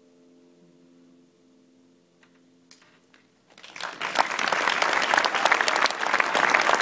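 The last sustained piano chord fades away. After a short, nearly quiet pause, the audience breaks into applause about three and a half seconds in, quickly building to loud clapping.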